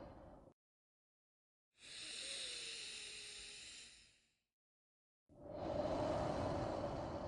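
Slow, deliberate human breath sounds for a paced breathing exercise. One breath fades out just after the start. After a silent gap comes a thinner, hissier breath lasting about two and a half seconds, and after another gap a fuller, lower breath.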